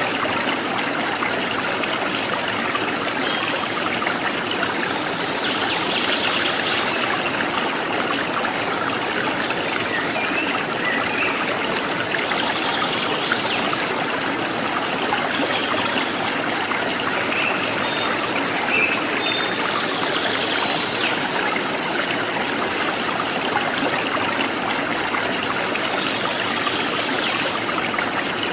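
A forest stream babbling and trickling steadily, with faint short bird chirps here and there.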